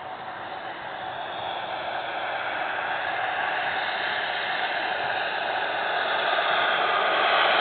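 Gas turbine engine of an RC model jet running with a steady rushing whine, growing louder as the slow-flying jet comes closer.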